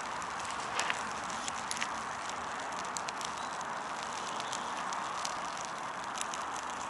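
Newly caught tinder fire of feather sticks and wood shavings crackling, with scattered sharp pops over a steady hiss.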